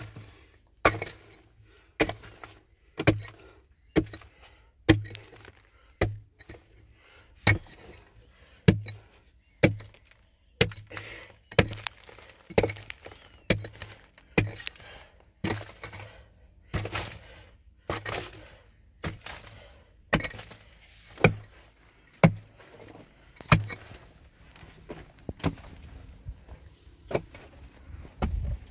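A long series of sharp striking blows, about one a second, each a hard knock with a short ring-off.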